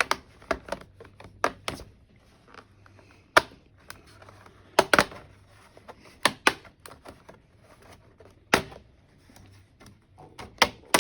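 Plastic clips of an HP 15-fc0017ca laptop's bottom case snapping and clicking as the case is pried open with a pick: a string of irregular sharp clicks, with the louder snaps coming a few seconds apart.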